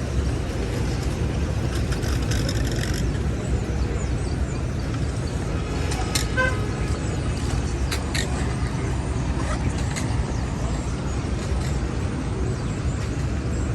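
City street traffic: a steady rumble of car and bus engines and tyres, with a hiss over the first few seconds, a short car horn toot about six seconds in, and a few sharp knocks after it.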